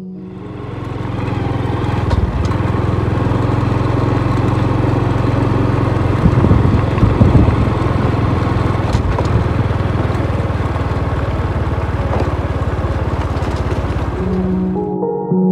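Small motorcycle engine running steadily while being ridden over a rough dirt road, with a few louder knocks from bumps around the middle.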